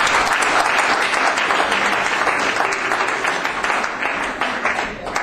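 Audience applauding, a dense, steady clapping that eases a little near the end.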